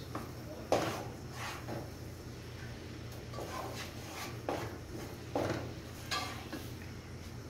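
Wooden spoon stirring thick semolina halwa in a non-stick pot, scraping and knocking against the pot several times at uneven intervals. The halwa is cooked through, with the oil separating out.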